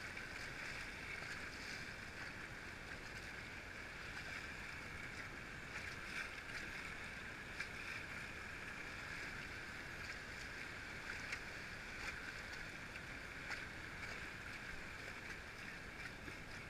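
Steady rush of river water around a whitewater raft, with faint, scattered splashes and knocks now and then.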